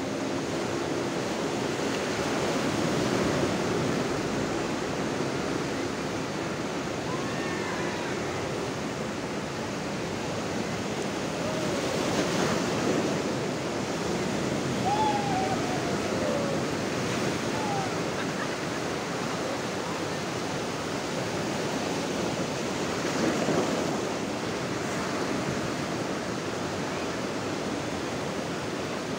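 Sea surf breaking and washing up a sandy beach: a continuous rush of water that swells each time a wave breaks, several times.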